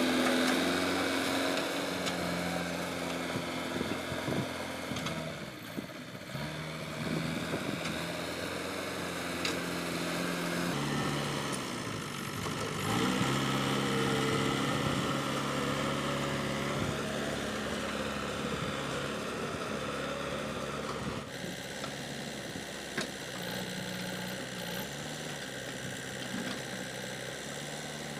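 Diesel engine of a JCB 3DX backhoe loader running steadily while the machine pushes and digs earth. Its note changes abruptly twice, about a third and two-thirds of the way through.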